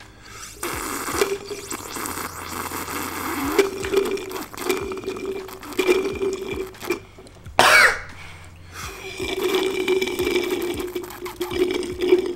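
Loud slurping and gurgling of sparkling water sucked through a straw from a bottle, in two long pulls with a short, sharp break between them about two-thirds of the way in.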